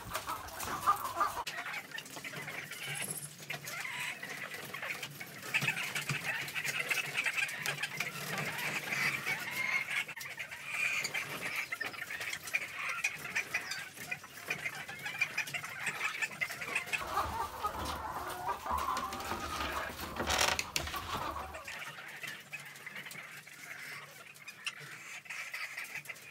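A flock of caged laying hens clucking continuously, many birds calling over one another, with one sharp knock about twenty seconds in.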